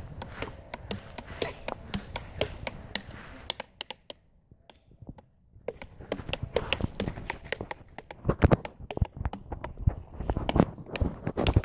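Two dead branches used as drumsticks, beaten on a tree trunk and stump: quick irregular wooden knocks that stop for about two seconds near the middle, then start again with some louder hits.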